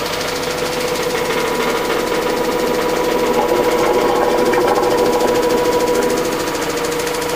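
Direct-drive front-loading washing machine running and vibrating hard, a steady hum with a fast buzzing rattle. The cabinet is shaking with no foam pads wedged beside it to damp it.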